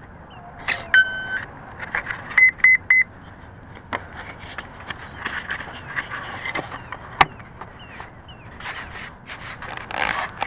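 Electric RC plane's speed controller sounding its arming tones through the motor as the flight battery is connected: one half-second beep, then three short beeps. After that comes handling noise against the foam airframe, rustling and scraping, with a sharp click about seven seconds in.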